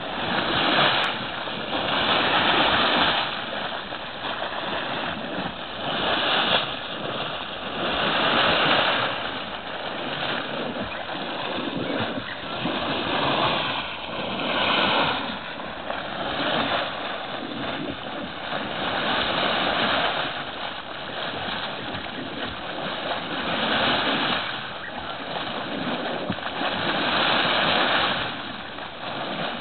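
Condensate spewing from a leaking pipeline up through a pool of water: a splashing, gurgling rush that swells and eases every few seconds.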